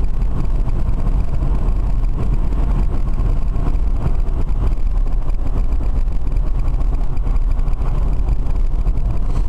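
Steady low road and wind rumble inside the cabin of a BMW converted to electric drive while it is being driven.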